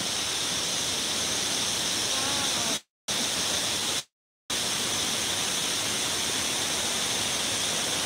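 Clear, shallow spring-fed stream rushing over rocks, a steady hiss of water. The sound cuts out completely twice near the middle, each time for well under a second.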